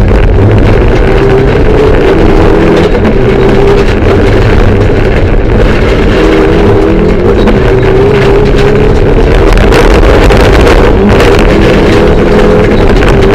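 Mitsubishi Lancer Evolution III rally car's turbocharged 2.0-litre four-cylinder engine running hard, loud inside the cabin, its pitch wavering slightly as the driver works the throttle, with road and wind noise.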